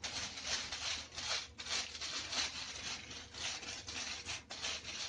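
Pastry brush greasing an aluminium-foil-lined baking tray with ghee: repeated scratchy rubbing strokes across the crinkled foil, about two a second.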